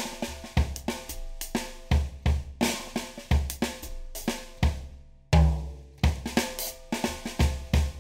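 Background music: a drum-kit groove of kick drum, snare and hi-hat with a few held notes over it, and one heavier low hit with a deep note about five seconds in.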